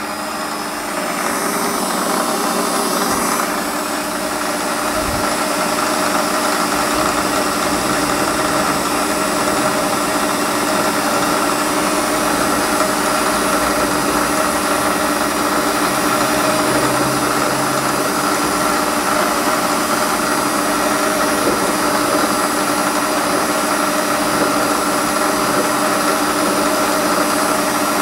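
Warco WM180 mini lathe spinning up over the first couple of seconds, then running steadily with a constant whine from its motor and drive as a centre drill in the chuck is fed into an aluminium block.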